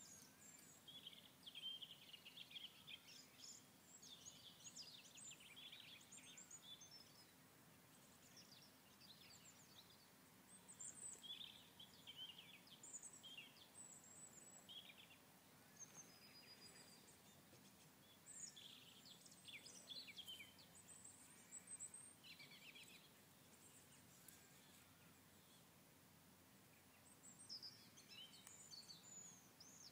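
Faint bird calls and song: short high chirps in clusters every second or two, over quiet steady background noise.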